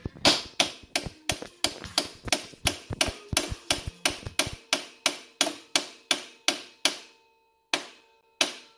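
Steady hammer blows, about three and a half a second, driving a homemade aluminum bushing into a quad's swing-arm pivot, each strike leaving a short metallic ring. The rhythm stops about seven seconds in, followed by two last separate blows.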